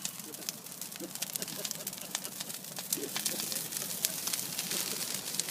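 Bonfire crackling: many sharp little cracks and pops, irregular, over a steady hiss.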